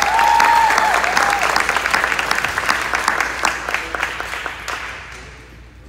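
Audience applauding, loudest at the start and dying away over the last second or two.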